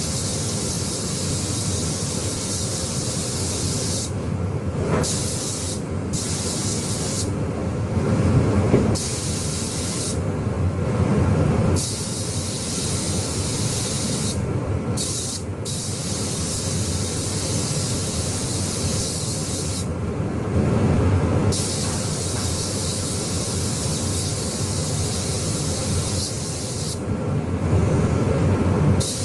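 Paint spray gun hissing in long passes, the trigger let go briefly about eight times so the hiss cuts out and comes back, over a steady low rumble.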